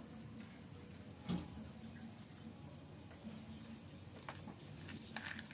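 Crickets chirring steadily in the background, with a single sharp knock about a second in.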